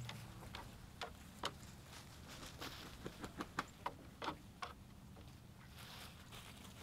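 Chickens' feet tapping on a wooden coop ramp as they walk out of the coop: a scatter of quiet, sharp, irregular ticks, bunched together between about one and five seconds in.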